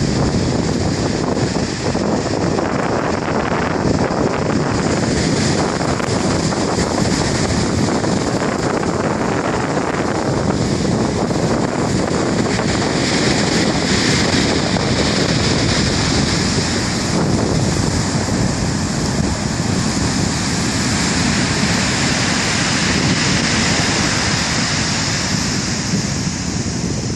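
Black Sea waves washing in, with wind buffeting the microphone: a steady, loud rush of noise.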